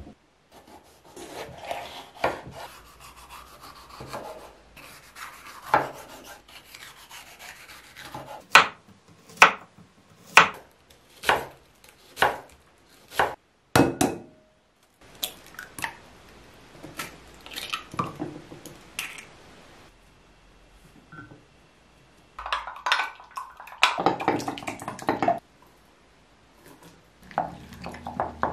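Food preparation on a wooden cutting board: a knife slicing and chopping bell pepper, including a run of evenly spaced chops about one a second. Later, eggs are cracked into a glass bowl, and egg with chopped vegetables is beaten in the glass bowl.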